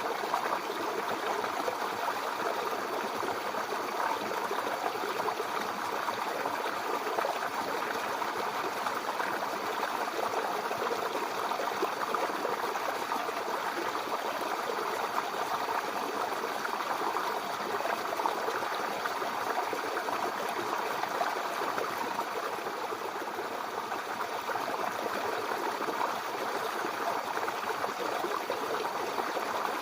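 Mountain river flowing over rocks: a steady rushing babble of water.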